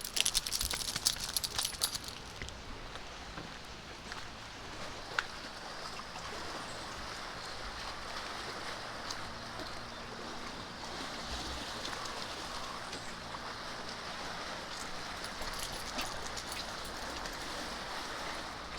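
Steady outdoor background hiss, with a flurry of clicks and rustles in the first two seconds.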